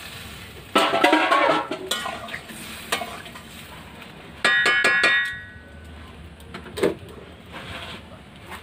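Metal spoon clattering and scraping in a metal cooking pot as a curry is stirred. A quick run of ringing metal clanks comes about halfway through, like a spoon knocked on the pot's rim, with a few single knocks around it.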